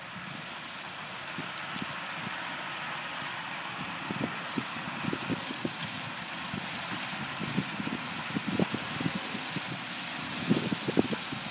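John Deere tractor working in the field, its engine growing gradually louder, with irregular low thumps that come more often near the end.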